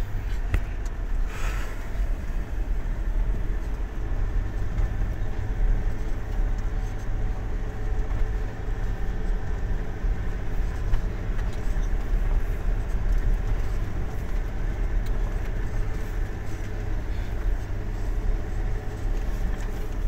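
Heard from inside the cab: a vehicle's engine running and its tyres on a gravel road, a steady low rumble.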